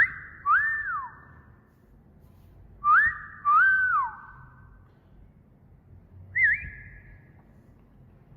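Wolf whistle repeated: a quick upward sweep followed by a note that rises, holds and drops away, given twice about three seconds apart, then a shorter wavering whistle near the end, each trailing into a faint echo.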